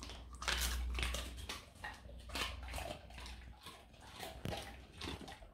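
A Vizsla chewing and crunching a piece of dried chicken breast jerky, in irregular crunches.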